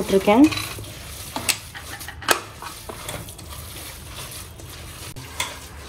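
Soaked leftover rice being squeezed and mixed by hand with sambar powder and salt: soft, irregular squishing with a few short clicks.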